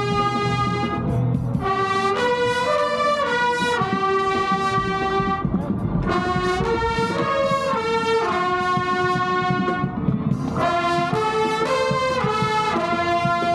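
A marching band's brass section (trumpets, trombones and horns) playing a slow tune in held chords. The chord changes every second or so.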